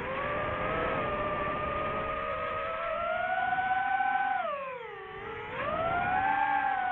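DJI FPV drone's motors and T-Motor T5143S propellers whining, the pitch following the throttle. It holds fairly steady, drops sharply and quietens about four and a half seconds in, then climbs back up a second later.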